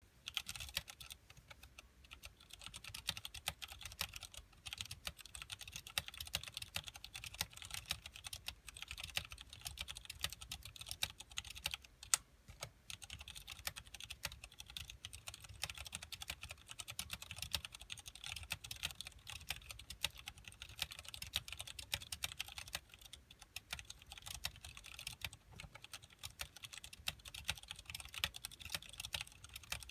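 Steady, fast typing on a KBParadise V60 mechanical keyboard with tactile Cherry MX Clear switches, PBT keycaps and an acrylic case, a dense run of keystroke clacks, with one louder clack about twelve seconds in.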